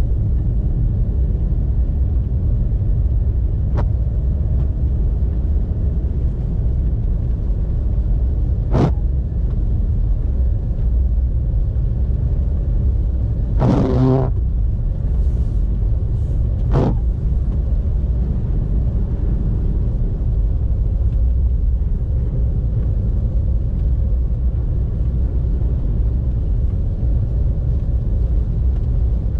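Car driving through a snowstorm: a steady low rumble of tyres and engine, broken by a few sharp knocks and one longer, louder clatter about fourteen seconds in.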